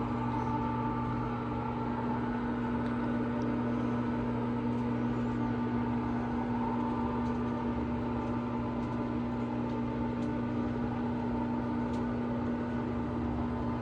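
Electric motor of a motorized retractable screen running steadily, a constant hum with a whine above it.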